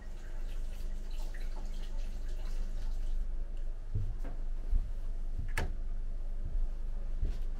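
Water dripping and splashing at a bathroom sink as someone washes, followed by a few light knocks and one sharper click about five and a half seconds in.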